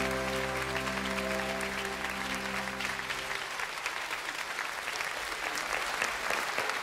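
Studio audience applauding, with the song's final held chord sounding underneath until it stops about three seconds in, leaving the applause alone.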